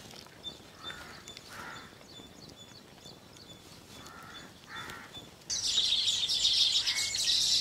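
Two pairs of faint bird calls, then from about five and a half seconds in a sudden loud, dense chorus of chirping from a weaver-bird colony around its hanging nests.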